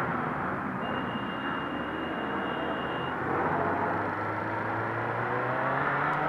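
Several motorcycles riding slowly together, engines running at low revs over a steady rush of noise, as heard from a rider's helmet camera. The engine notes climb slowly in the second half.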